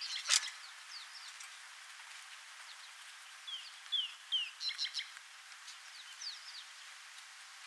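Wild birds calling in the bush: short high chirps, with one bird giving a run of three quick falling notes about half a second apart near the middle. A single sharp click comes just after the start.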